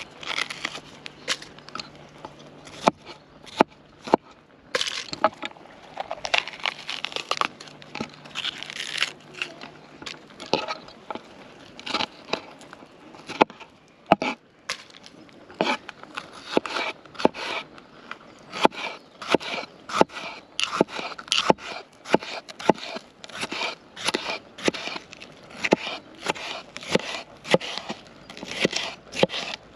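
Fingers tearing the core and seeds out of a raw red bell pepper, crisp crackling and crunching of the flesh. About halfway through, a chef's knife begins slicing the pepper into strips on a wooden cutting board, a steady run of sharp knocks as the blade hits the board.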